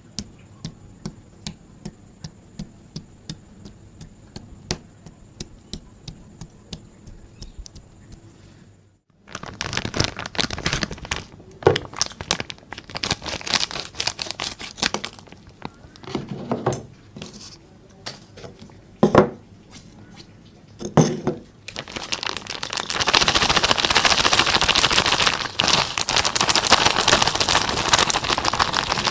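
Close-miked crinkling and crackling handling sounds: a run of evenly spaced clicks for the first nine seconds, then irregular crinkly bursts, building to continuous dense crackling in the last six seconds.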